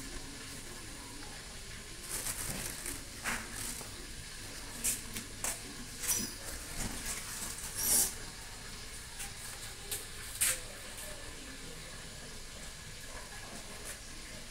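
A kitchen knife cutting tofu on a plastic plate, giving a string of short clicks and scrapes, the loudest about eight seconds in, over a steady hiss.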